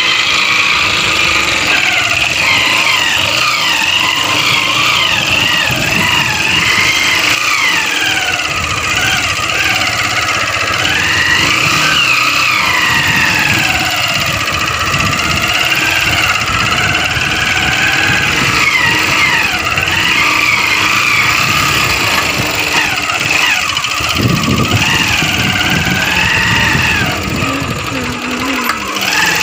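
Motorcycle engine running as the bike rides along a sandy track, its pitch rising and falling with the throttle.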